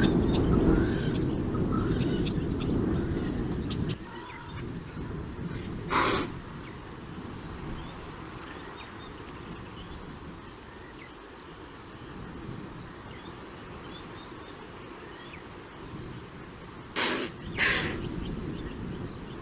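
Impala alarm snorts: three short, sharp snorts, one about six seconds in and two close together near the end, with small birds calling repeatedly in the background. A low rumbling noise fills the first few seconds.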